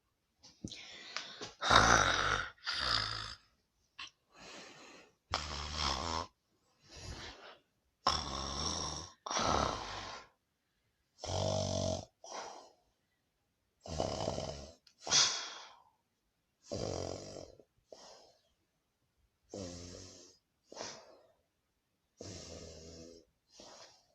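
Snoring sounds from a person: loud rattling snores, each usually followed by a shorter, softer breath, repeating unevenly about every two seconds.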